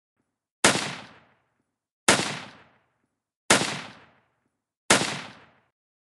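Four single shots from a .30 caliber M1 Garand semi-automatic rifle, fired evenly about a second and a half apart. Each is a sharp crack with a short fading tail.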